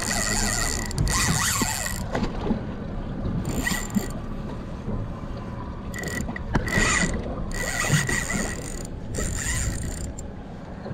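Fishing reel whirring in several stop-start bursts, each with a thin steady whine, under the load of a large hooked fish being fought beside the boat.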